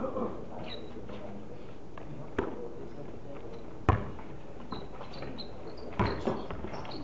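Basketball bouncing on a concrete court: a few scattered sharp thuds a second or two apart, the loudest about four seconds in.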